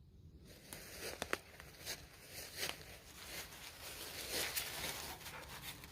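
Footsteps crunching over the forest floor at a walking pace, with a few sharper clicks among them.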